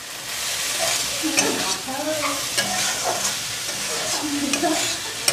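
Diced potato and vegetable samosa filling sizzling as it fries in a metal kadai, while a metal spatula stirs it and scrapes against the pan with repeated clicks.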